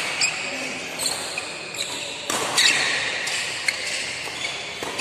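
Badminton doubles rally: sharp racket strikes on the shuttlecock about once a second, with sneakers squeaking on the court floor, loudest about two and a half seconds in.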